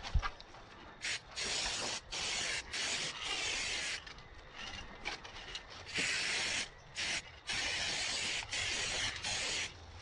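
Aerosol spray paint can spraying in a string of short hisses, about ten bursts with brief gaps between them, the longest about a second, with a pause of a couple of seconds in the middle.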